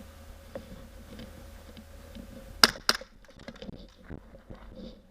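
Two sharp shots from an airsoft pistol about a quarter second apart, a little past halfway, among light clicking and rustling.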